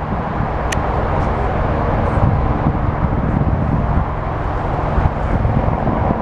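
Eurocopter AS355 Twin Squirrel helicopter running, its twin turbine engines and rotor making a steady drone with several held tones. A brief high click sounds under a second in.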